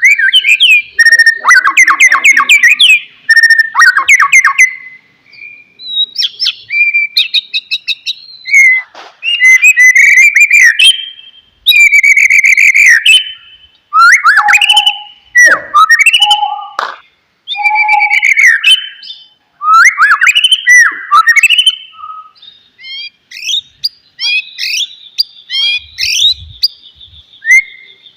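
White-rumped shama (murai batu) singing a loud, varied song: clear whistled phrases, gliding notes, fast trills and clicking chatter in bursts of a second or two with short pauses between. A thin, steady high buzz runs under the song near the end.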